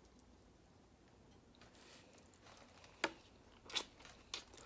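Mouth sounds of biting into and chewing a glazed riblet: faint at first, then three sharp bites in the last two seconds, the first the loudest.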